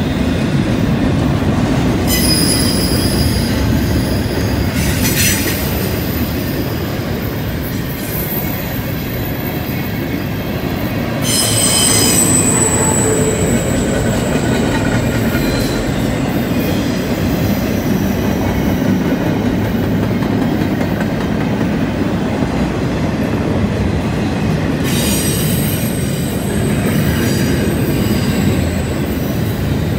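Double-stack intermodal freight cars rolling past on a curve: a steady rumble of wheels on rail, with high-pitched wheel flange squeal that comes and goes three times.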